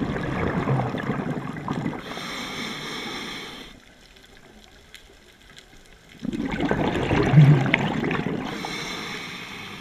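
Scuba diver breathing through a regulator: two breaths about six seconds apart, each a loud bubbling rush of exhaled air followed by a thinner hiss from the regulator, with a quieter pause between.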